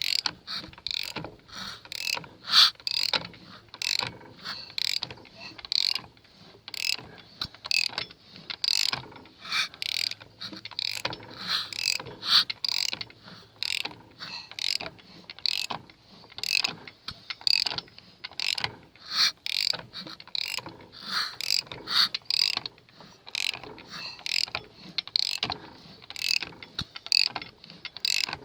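Four-cylinder engine being turned over by hand with the spark plugs in, in a long run of repeated mechanical clicks several times a second. Under them come the psh, psh puffs of each cylinder making compression, a check of the engine after a new head, cams and shims.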